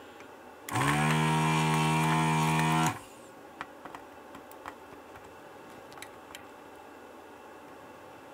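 Vacuum pump of an electric desoldering gun running for about two seconds, spinning up as it starts and then cutting off, as it sucks molten solder from a circuit-board joint. Faint clicks and taps follow, and the pump starts again right at the end.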